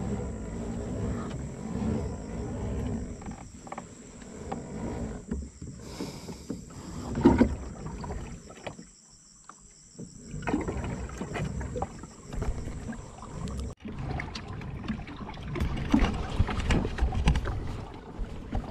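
Uneven rumbling wind and water noise on a kayak-mounted action camera, with scattered knocks and clicks from handling on the kayak, under a steady high-pitched whine that stops abruptly about fourteen seconds in.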